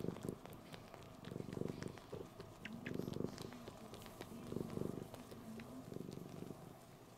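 Domestic cat purring, the purr swelling and fading about every second and a half, with small sharp clicks and smacks as it suckles on a fleece blanket.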